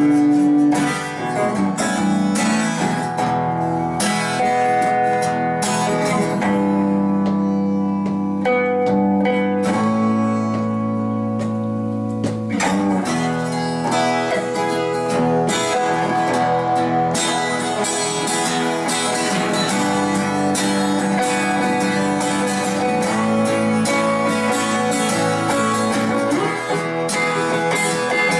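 Live bluesy guitar music with no singing: an acoustic guitar strummed along with a Telecaster-style electric guitar picking a lead line.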